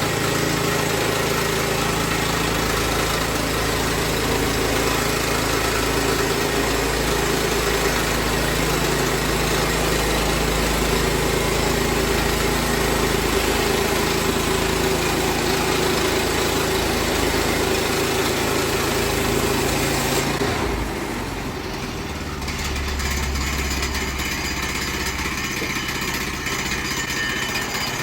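Woodland Mills HM122 portable sawmill's gas engine running under load as the band blade cuts through a log, then about twenty seconds in the cutting noise drops away and the engine settles to a lighter, steady running as the blade clears the cut.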